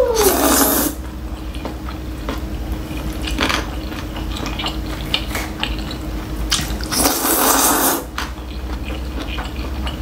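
Close-up mukbang eating sounds: black bean noodles (jjajangmyeon) slurped in loudly twice, for about a second at the start and again about seven seconds in, with wet chewing and mouth smacking between.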